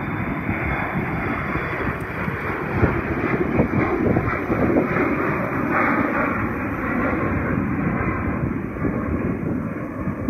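Embraer ERJ-family regional jet climbing out after takeoff, its twin rear-mounted turbofan engines at climb power giving a steady jet noise.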